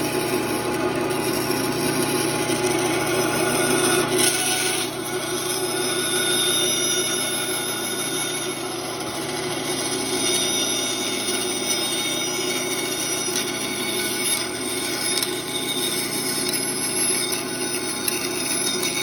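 Bandsaw running and cutting wood, working a curve with a series of cuts into the line; the loudness swells and eases as the blade goes into the stock.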